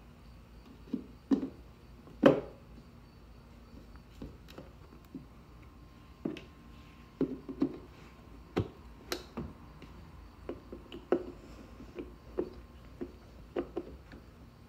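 Scattered clicks and light knocks of hands working plastic bulb sockets and wiring into a 1986 Pontiac Trans Am's tail lamp housing, with the sharpest knocks about two seconds in and again near the middle.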